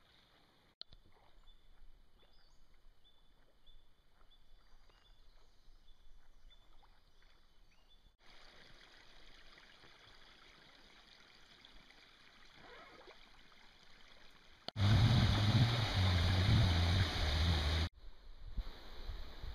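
Faint water sounds of a kayak gliding on calm creek water, with small drips and trickles. Near the end a loud rushing, rumbling noise lasts about three seconds and cuts off abruptly.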